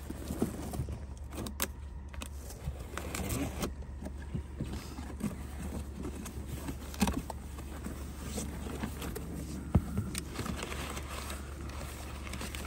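Cardboard box being opened by hand: a knife slitting the packing tape, the flaps pulled back, and packing paper rustling, heard as scattered short clicks and scrapes.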